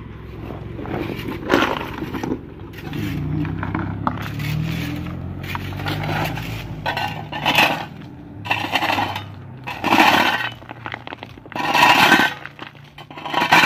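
Shovels scraping and digging into loose gravel and broken stone, with rocks clinking, in separate strokes a second or two apart. A car engine hums low under the first half.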